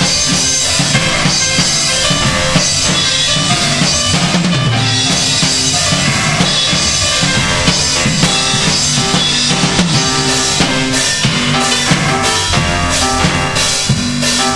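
A recorded rock instrumental playing over a hall's loudspeakers: a steady drum-kit beat under keyboard played through guitar-amp effects.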